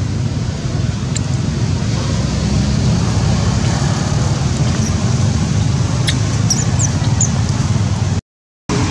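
Steady outdoor background noise with a strong low rumble, with a few faint high chirps about five to seven seconds in; the sound drops out for a moment near the end.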